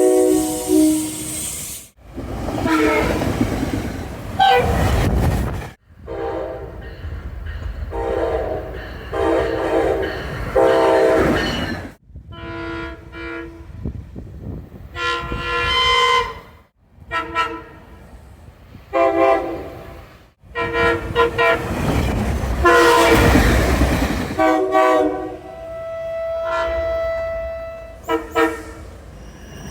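SEPTA Regional Rail train horns sounding in a string of clips joined by sudden cuts: repeated short and long blasts, each a chord of several notes. Between blasts, trains run past with a heavy rumble.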